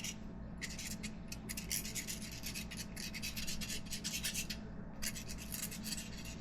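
Quick scratchy rubbing strokes, about three or four a second, with a short pause about four and a half seconds in, over a steady low hum.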